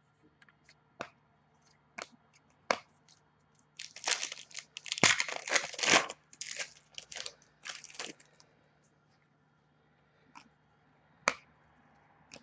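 Trading cards being handled by hand: a few light clicks and taps, then about four seconds of rustling and crinkling as a stack of cards is shuffled and flipped through, then two more sharp clicks near the end.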